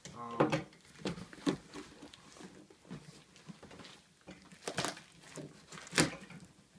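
Cardboard shipping box wrapped in plastic film being pulled open and handled: irregular scrapes, rustles and knocks of cardboard flaps and film, the loudest about half a second, a second and a half, and six seconds in.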